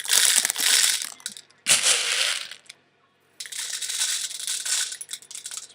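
Soft plastic 6 mm airsoft BBs poured into a plastic medicine bottle, rattling in three bursts with short pauses between.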